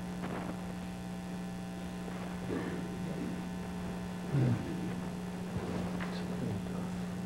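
Steady electrical mains hum on the recording, one low, even tone with fainter overtones. A few faint, brief sounds come through it, one louder about four and a half seconds in.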